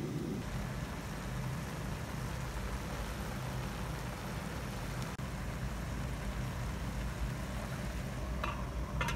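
Beef bulgogi and vegetables simmering in a frying pan on a portable gas stove, the sauce bubbling and sizzling over a steady low hum. A couple of light clinks near the end.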